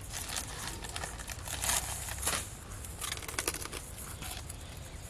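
Plastic bag being handled: irregular crinkling and rustling, with louder crackles a couple of times near the middle.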